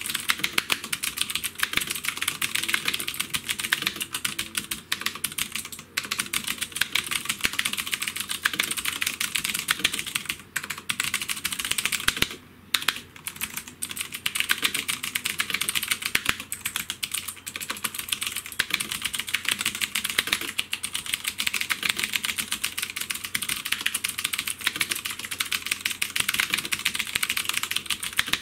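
Fast, continuous typing on a Havit HV-KB366L mechanical keyboard: a rapid clatter of key clicks, with a short break about twelve seconds in.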